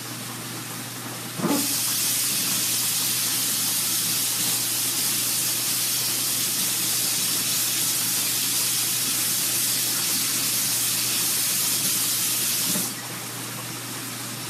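Kitchen tap running water onto a cutting board in the sink, a steady hiss that is turned on about a second and a half in and shut off a second and a half before the end.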